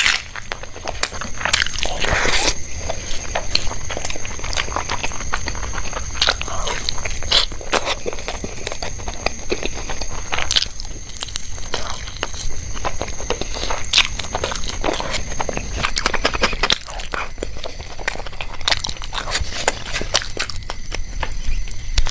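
Close-miked eating: repeated bites and chewing of crunchy food, with a dense run of irregular crunches and crackles.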